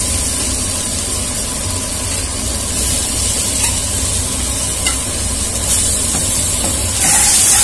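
Boiled potato cubes frying in oil and spice masala in a pan, a steady sizzling hiss that grows louder about seven seconds in.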